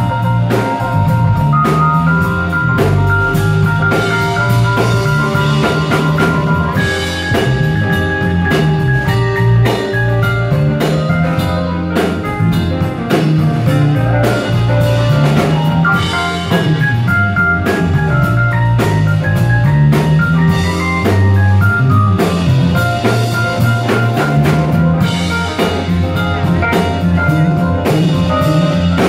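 A live jazz band playing: an electric bass line and a drum kit, with held melody notes above them, heard from among the audience.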